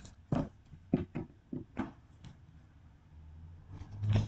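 Tarot cards being handled and shuffled: a scatter of short separate card clicks and slaps at an uneven pace.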